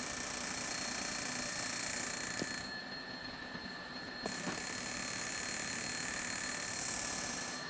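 Magnetic slimming device running after being started: a steady hiss with a high whine through it. The upper part of the hiss cuts out for about a second and a half near the middle, with a few faint clicks.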